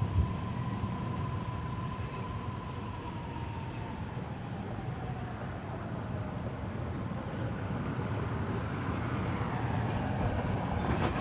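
Suburban passenger train rolling along the track with steady low rumble, and a whine that slides down in pitch as the train slows on its approach to a stop.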